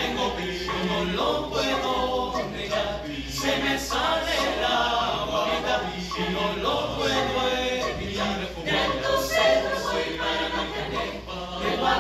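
Mixed choir of men's and women's voices singing a cappella in harmony.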